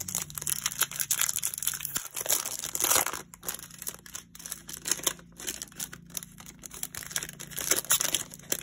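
Foil wrapper of a baseball card pack crinkling and tearing as it is pulled open by hand, in a run of sharp, irregular crackles.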